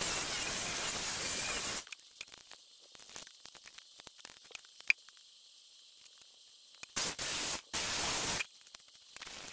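Running water from a tap, turned on and off while fish fillets are rinsed: a steady rush for about two seconds that cuts off abruptly, then a quiet stretch of small handling clicks with one sharp click about midway, and two short bursts of water near the end.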